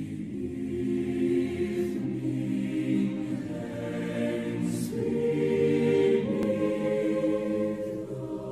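Background music of sustained choir-like voices holding slow chords, which shift about five and six seconds in.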